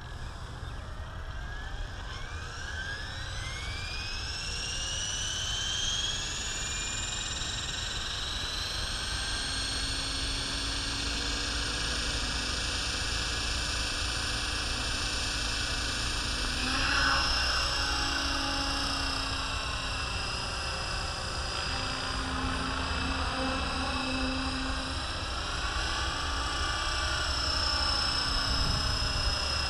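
Align T-Rex 550E electric RC helicopter spooling up: its motor and rotor whine climbs in pitch over the first several seconds to head speed, then holds steady. After about the middle, the whine begins to waver and swell as the helicopter lifts off and flies.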